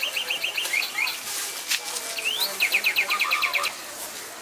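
A small songbird singing in rapid trills of high chirps, about ten a second, with a quick rising whistle between the two trills.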